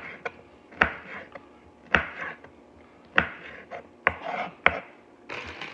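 Chef's knife slicing through bell peppers and knocking on the cutting board: about five sharp chops roughly a second apart, with lighter taps between. A steady hiss starts near the end.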